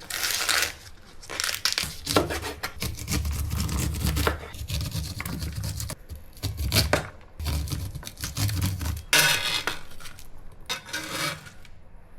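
Kitchen preparation sounds: dishes and utensils clattering and clinking, with packaging being torn and crinkled.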